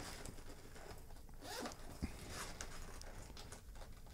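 Zipper on a small leather-feel bowling bag being pulled open by hand, faint.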